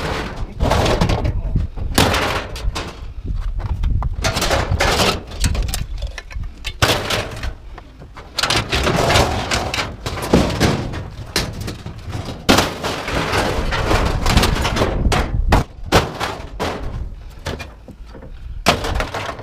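Irregular bangs and clanks of scrap metal being handled, over a steady low rumble.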